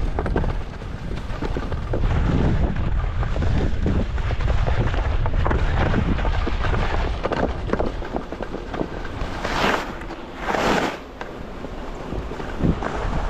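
Wind buffeting the microphone in a steady low rumble, with two brief loud hissing swooshes about ten seconds in.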